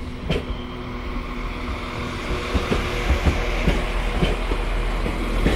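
Northern class 195 diesel multiple unit pulling slowly into the platform close by, its engines humming steadily under a growing rumble of wheels on rail, with occasional clicks. The sound slowly gets louder as the coaches pass.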